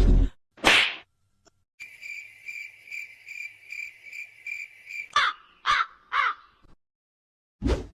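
A string of sound-effect clips. A short whoosh comes first, then a cricket chirping steadily at about three chirps a second for about three seconds, then three crow caws, and another whoosh near the end.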